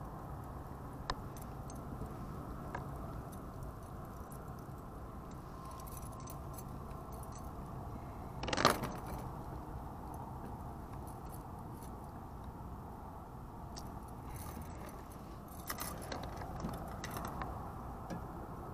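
Metal chain fish stringer clinking and jangling as its snap clips are handled and fastened onto a bowfin, with scattered small clicks and one louder clatter about halfway through.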